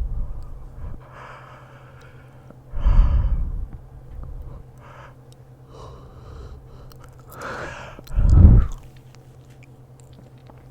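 A man yawning twice in a row close to the microphone. Each yawn is a loud gust of breath, about three seconds in and again near the end, with softer breathing in between.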